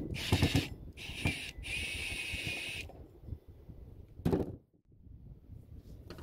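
Cordless drill-driver whining in three short bursts as it backs out stiff screws holding a brass mushroom vent on a boat roof. Then handling noise and a single knock about four seconds in.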